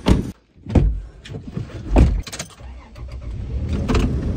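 Rear door of a Toyota Tacoma pickup opened and shut: a few sharp thuds and clunks, the loudest about two seconds in. From about three seconds in, the low rumble of the truck driving rises and holds.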